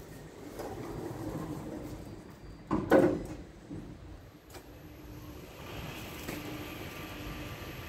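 Enor machine-room-less lift: a loud clunk about three seconds in, then the lift's motor starts up, running with a steady hum and a high whine.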